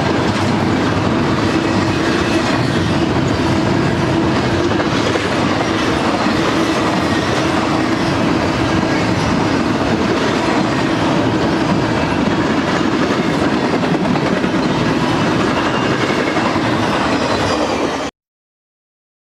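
Double-stack intermodal freight train rolling past, its loaded container well cars making a steady noise of steel wheels running on the rails. The sound cuts off suddenly near the end.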